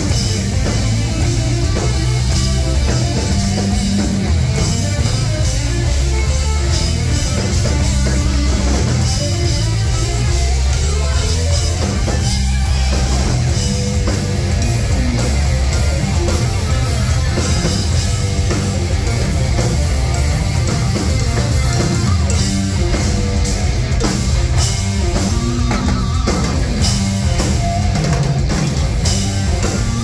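Live heavy rock band playing loudly, heard from the audience, with electric bass guitar and drum kit prominent.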